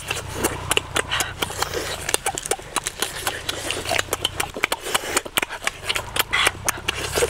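Close-up eating sounds of roast chicken being chewed and torn with the teeth: a quick, irregular run of wet smacks and clicks, over a low steady hum.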